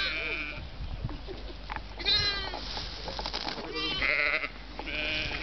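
Sheep bleating: several wavering bleats, one after another.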